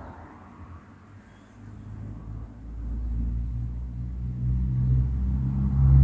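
Low engine rumble with a steady hum, growing louder from about a second and a half in.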